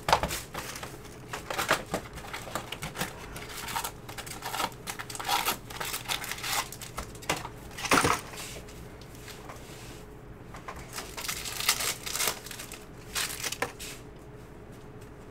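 Cardboard hobby box opened and its stack of foil baseball-card packs handled and ripped open: irregular crinkling, rustling and tapping, with one louder crackle about eight seconds in, then fresh cards being shuffled.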